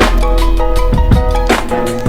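Background music with a heavy bass line, sustained melodic notes and a steady drum beat.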